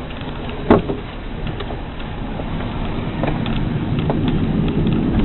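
Cabin noise of the AC Propulsion eBox electric car on the move: a steady rumble of tyres and road with no engine note, growing gradually louder. A single sharp click comes about a second in.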